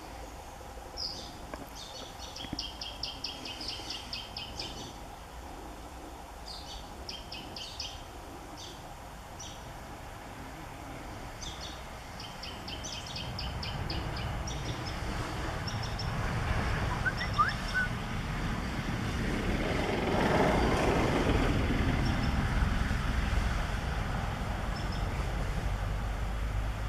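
A bird sings short bursts of rapid high trills over and over. From about halfway, a motor vehicle's engine rumble swells in, loudest about three-quarters of the way through, and the trills fade under it.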